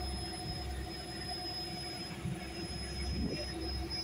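Mechanized fishing boat's engine running: a steady low hum with a thin, high, steady whine over it.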